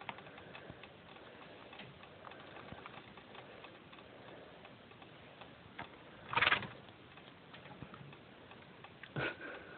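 Faint, scattered clicking from a guinea pig mouthing the end of a plastic drinking straw. Two short, louder noises stand out, one about six and a half seconds in and one near the end.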